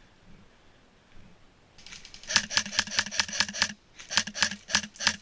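Airsoft AKS-74U electric rifle firing two bursts of rapid shots, about seven a second. The shooting starts about two seconds in, with a short break a little before four seconds.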